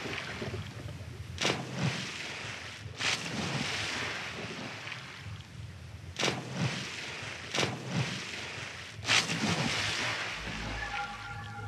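Wind buffeting the microphone over water noise aboard a dive boat, with five sharp slaps spaced one to three seconds apart.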